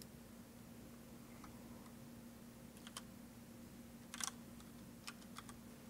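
Faint clicks of computer keys being typed: a few scattered single clicks and a quick cluster about four seconds in. A low steady hum sits beneath them.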